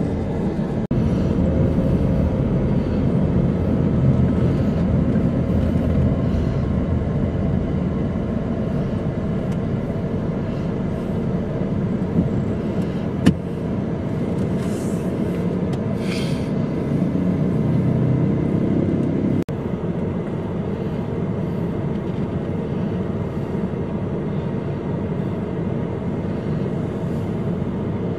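Steady low rumble of engine and road noise heard from inside a moving car's cabin in city traffic, with a single sharp click near the middle.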